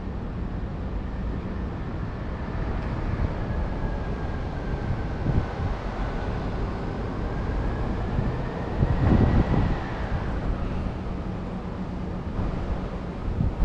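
Street traffic noise with a passing vehicle. A thin whine slowly dips and then rises in pitch, and the vehicle is loudest about nine seconds in before the whine fades.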